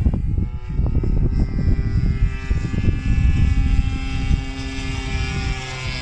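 Engine of a Seagull Edge 540 radio-controlled aerobatic model plane droning steadily overhead, its pitch dipping slightly near the end. A heavy, gusty rumble of wind on the microphone runs underneath.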